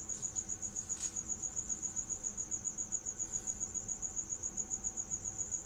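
A cricket chirping in a steady high-pitched pulsing trill, about nine or ten pulses a second.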